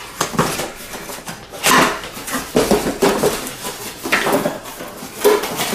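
Cardboard packing inserts scraping and rubbing against a corrugated box as they are pulled out by hand, in a series of short scrapes and scuffs.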